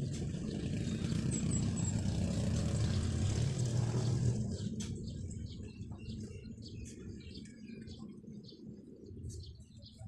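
A road vehicle passing by, swelling to its loudest about three to four seconds in and fading away by about five seconds. Birds chirp through the rest.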